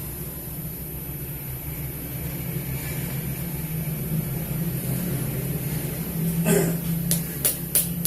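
A steady low rumble. About six and a half seconds in there is a brief rush of noise, and then sharp regular taps begin, about three a second.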